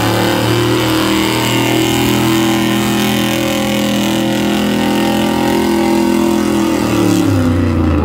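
A 1970s Ford pickup's modified gas engine running hard at high, steady revs under full load as it pulls a weight-transfer sled. Near the end the revs fall away.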